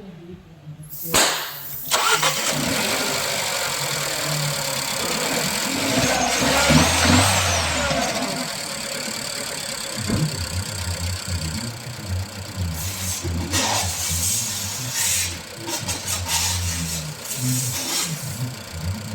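Nissan Juke petrol engine started about two seconds in. It swells louder briefly, then settles into an uneven, rough idle, the shake of a cylinder misfiring.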